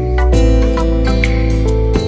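Background music: a gentle instrumental with plucked guitar-like notes over a steady bass.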